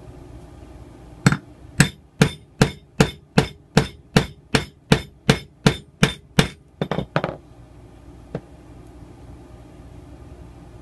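Claw hammer striking a metal grommet-setting tool: about fifteen quick blows at a little over two a second, with a quick double blow near the end before it stops. Each blow drives the setter down onto the brass grommet and washer on a wooden block, curling the grommet's edges down to set it.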